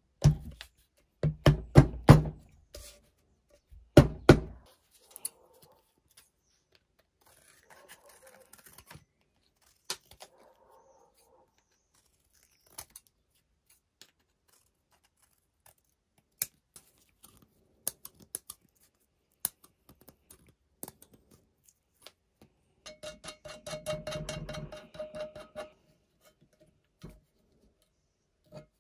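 A hammer striking a length of pipe used as a drift, driving a part down over the spindle of a cast-iron hand-cranked grinder housing: four sharp metal blows in the first few seconds, two of them close together. Light clicks of small metal parts being handled follow, and later there are about three seconds of rapid, ringing metal rasping.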